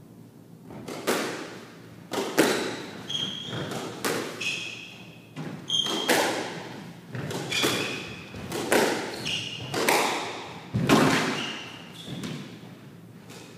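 Squash rally: a string of sharp, echoing strikes of the ball off racquets and court walls, roughly one or two a second, with short high squeaks of court shoes on the wooden floor between them. The hits begin about a second in and stop near the end.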